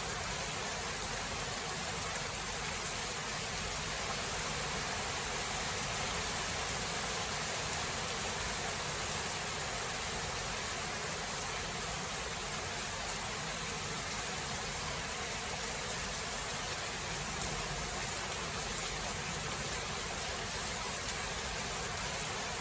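Steady rain falling in a thunderstorm, an even hiss with a few faint ticks of drops.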